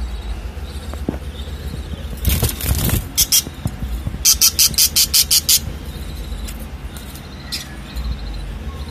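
Pet parrots squawking: a few harsh calls, then a quick run of about eight sharp squawks, over a steady low rumble.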